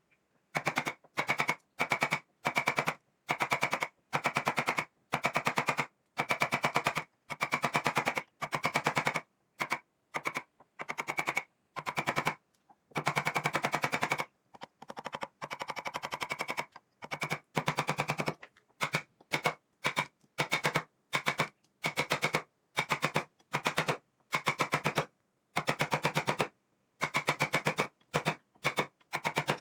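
A wood-carving tool chipping into wood in rapid, evenly paced taps that come in short bursts of about a second, with silent gaps between them.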